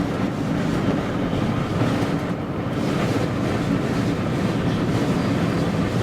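Strong wind buffeting the microphone: a steady, rumbling rush of wind noise that does not let up.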